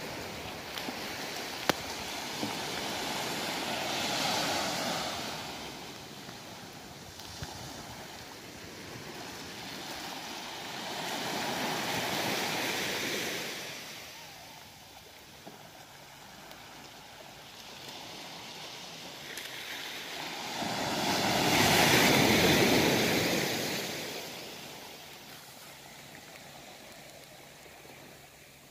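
Small waves washing onto a sandy beach: three slow swells of surf noise several seconds apart, the third the loudest, about two-thirds of the way in. A single brief click comes just after the start.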